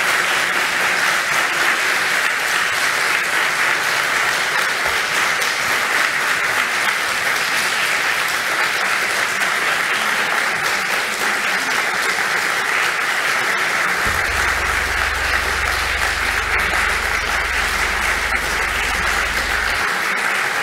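A large seated audience applauding steadily at the end of a talk.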